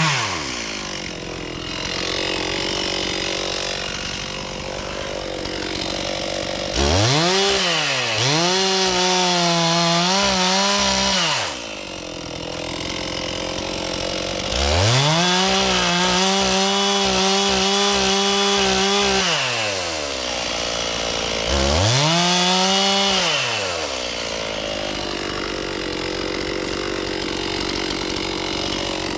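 Two-stroke chainsaw idling and revved to full throttle three times, each burst held for a few seconds before dropping back to idle. The pitch sags briefly during the first burst.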